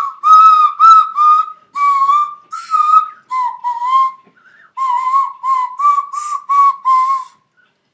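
Nose flute played in short, breathy whistled notes that stay within a narrow pitch range, in phrases with brief pauses between them. It is not being played properly.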